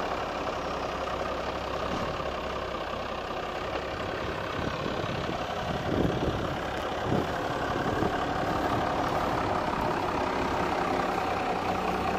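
Truck engine running steadily near idle while backing slowly, with two brief faint sounds about halfway through.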